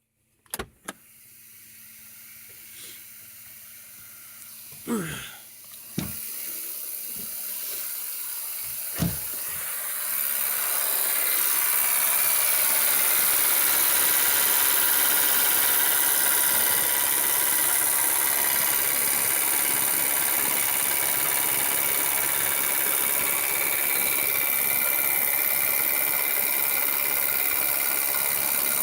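A few knocks and thumps, then a Renault Megane 2 engine idling on LPG, louder from about ten seconds in, with a steady hiss and the rapid clatter of its Valtec gas injectors. The owner holds the clatter to be abnormal since the gas conversion: the car sounds like a diesel.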